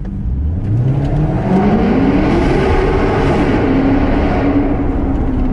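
Maserati GranTurismo S's 4.7-litre V8, straight-piped with an X-pipe, accelerating hard, heard from inside the cabin. The engine note climbs steeply for about two seconds, dips briefly about three seconds in, then holds at a steady high pitch.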